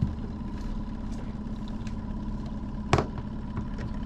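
Boat motor running steadily at trolling speed, a low even hum. Two sharp knocks are heard, a small one at the start and a louder one about three seconds in.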